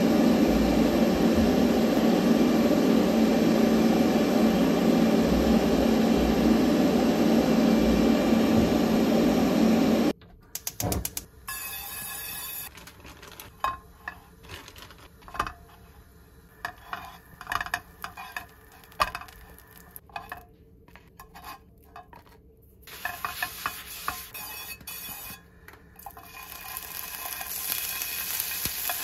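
A loud steady rushing noise that cuts off abruptly about ten seconds in. Then scattered light clicks and knocks of food and tongs on a nonstick frying pan. Near the end, raw shrimp start sizzling in hot oil.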